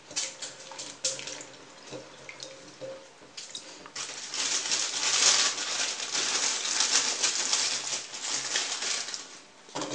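Water noise from washing fresh broad beans: light clicks and small splashes at first, then a steady rush of water from about four seconds in, stopping just before the end.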